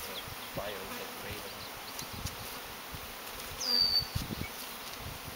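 Honeybees buzzing in flight around newly installed hives, a steady hum. About three-quarters through, a short high whistle falls in pitch.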